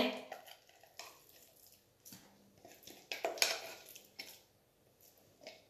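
Spatula scraping thick pesto out of a plastic mini food-processor bowl into a glass bowl: a series of soft, irregular scrapes and wet squishes. The loudest comes a little past three seconds in.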